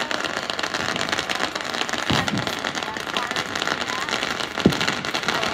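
Fireworks crackling densely, a continuous fizz of small pops, with a louder low boom about two seconds in and another near the end.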